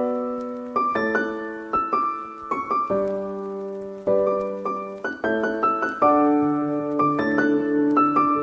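Background music: piano playing a gentle melody over chords, each note struck and fading, with lower, fuller chords coming in about six seconds in.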